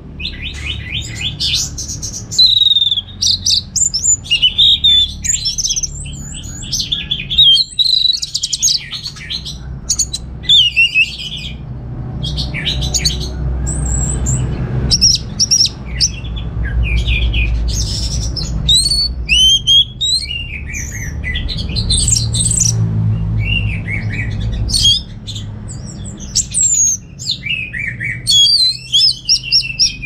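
Orange-headed thrush singing a long, varied song: quick whistled phrases, chirps and sliding notes that rise and fall, broken by short pauses.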